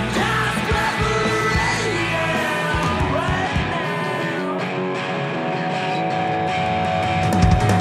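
Rock music with a singing voice, rather than the river or the rafters.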